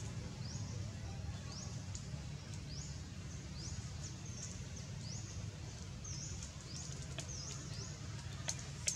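Outdoor forest ambience: short, high, rising chirps repeat about every half second to a second over a steady low rumble. There is a sharp click near the end.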